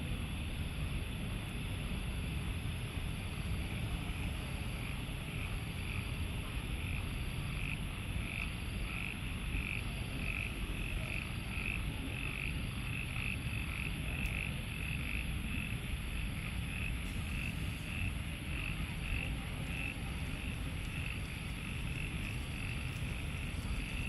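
Frogs calling after rain: short calls repeated at about two a second, clearest from a few seconds in, with a fainter, slower caller higher in pitch. Under them runs a steady low rumble.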